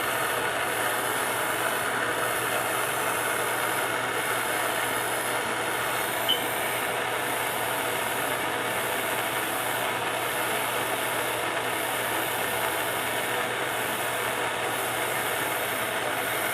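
Handheld gas torch burning with a steady hiss while heating a copper pipe joint for soldering, with one brief tick about six seconds in.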